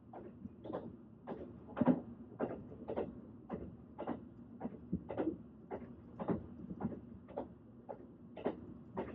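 Train running, its wheels clacking in an even rhythm of about two knocks a second over a low steady rumble.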